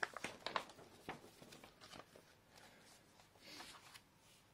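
Faint rustling of a large folded paper poster being handled and laid flat, with a few light clicks early on and a longer rustle of paper being smoothed by hand about three and a half seconds in.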